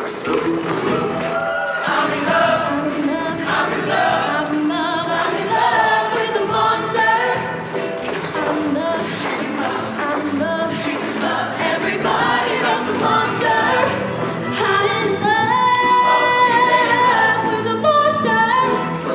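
Show choir singing over a loud musical backing, the massed voices moving through a melody and holding long notes near the end.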